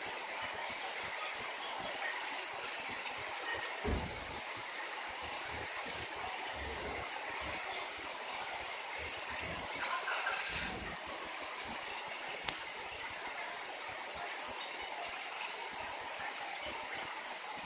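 Heavy rain pouring steadily onto wet paving stones and puddles, an even hiss of splashing drops. Two brief low thuds break through, about four seconds in and again around ten seconds.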